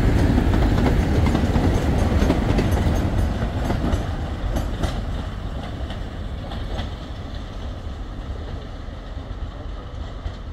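A multiple-headed train of British Rail diesel locomotives, a Class 31 and a Class 25 at the rear, passing close by and pulling away. Heavy diesel rumble with wheels clattering over the rail joints, fading steadily over the second half as the train recedes.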